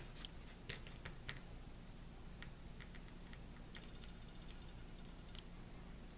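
Faint, irregular light clicks and ticks of a plastic school-glue squeeze bottle being worked along a plastic bat skeleton's wing bones, with low room hum beneath.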